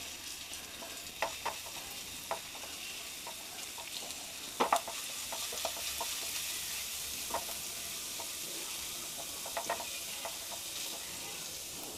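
Finely chopped ginger and garlic sizzling steadily in a little hot oil in a nonstick frying pan, while a wooden spatula stirs them and taps the pan now and then; the loudest tap comes a little under five seconds in.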